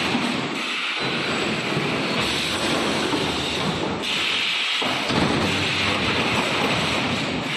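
Wire-mesh welding machine of an EPS 3D wall panel production line running: a loud, dense rumbling noise that shifts in character every second or two.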